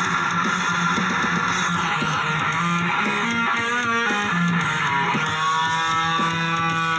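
Background music led by electric guitar, with sustained notes and a bass line.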